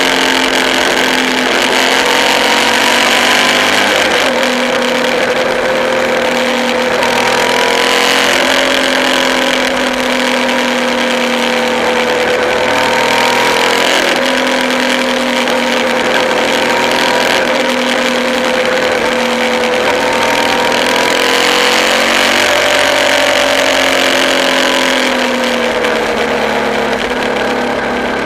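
Suzuki V-Strom DL650 motorcycle's V-twin engine running at road speed, its pitch rising and falling several times as the throttle opens and closes through the bends, with steady wind rush.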